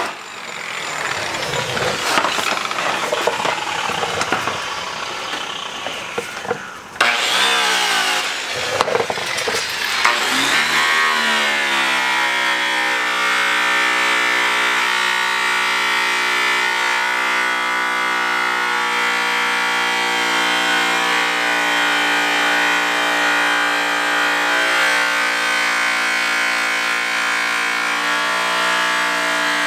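A motor runs with its pitch wavering for about the first ten seconds, then settles into a steady hum.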